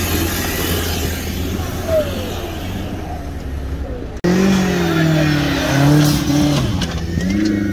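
Off-road 4x4 engine running with a steady low rumble, then breaking off abruptly about four seconds in. After the break an engine revs up and down under load.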